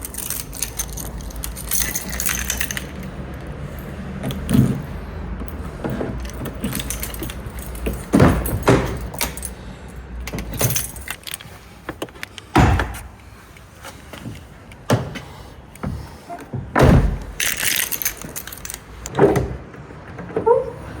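Car keys jangling and being handled, with repeated sharp clicks and knocks, over a steady low rumble that fades out about halfway through.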